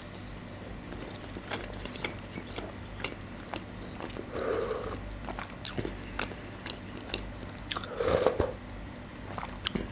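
Close-up chewing of flaky puff pastry, with many small crisp crunches. Two short slurps come about four and a half and eight seconds in, as spoonfuls of borscht are taken.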